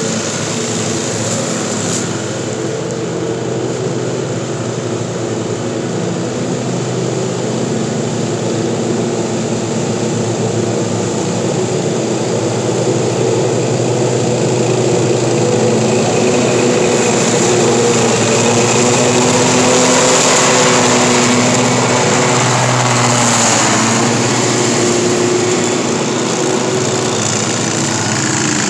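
Lawn mower engines running steadily at working speed as the mowers chop fallen leaves, growing louder in the middle as a machine passes close.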